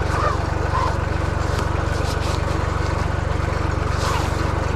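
Engine idling steadily with an even low throb.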